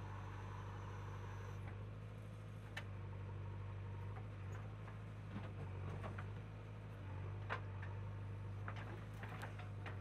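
Diesel engine of a JCB 3DX backhoe loader running with a steady low hum while the backhoe bucket digs into a heap of soil, with scattered light clicks and knocks from the digging, more of them toward the end.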